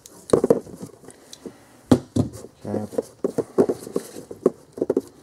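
Handling noise from a rubber heater hose and a hose cutter being moved about on a cardboard-covered bench: a run of soft, irregular knocks, taps and rustles, the loudest about two seconds in.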